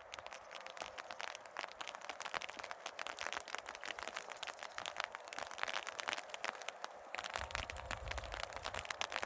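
Rain pattering close to the microphone as a dense, irregular crackle of drops. A low rumble comes in about seven seconds in.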